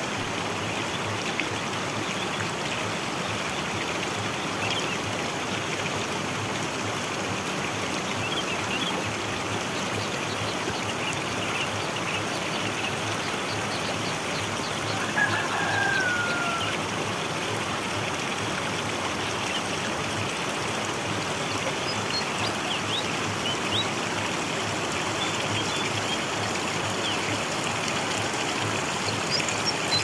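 Steady rush of running water from a small stream. Faint bird chirps come through it, and one falling whistled bird call sounds about halfway through.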